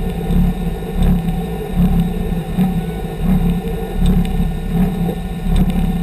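Lancia Delta Integrale's turbocharged four-cylinder engine running at a steady low idle, its note pulsing unevenly.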